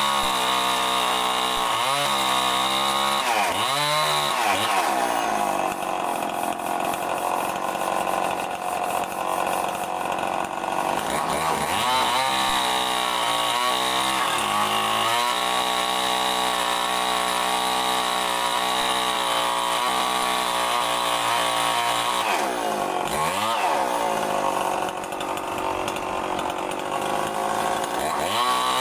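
Chainsaw running at high revs as it rips lengthwise through a mahogany plank. Its pitch dips and recovers a few times as it bogs under load in the cut.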